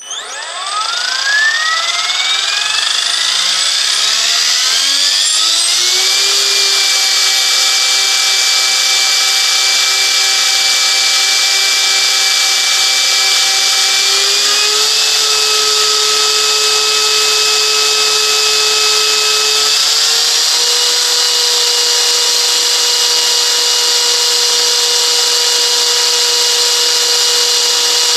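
Align T-Rex 500 EFL electric RC helicopter spooling up with a rising whine over about six seconds, then running at steady head speed and stepping up in pitch twice, about halfway through and again about two-thirds through. The whine includes the torque-tube tail drive, whose noise the owner questions as possibly abnormal.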